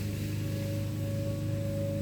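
Outdoor warning siren holding a steady tone during a routine monthly test, over a low, steady hum.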